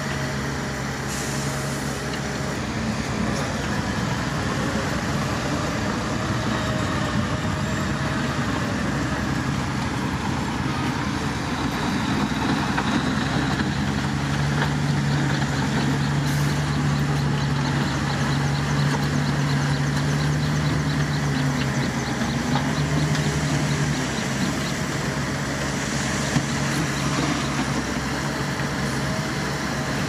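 Diesel dump truck engine running as the truck raises its tipper bed to unload soil. The engine note rises and holds steadier and louder for several seconds around the middle, as the bed lifts.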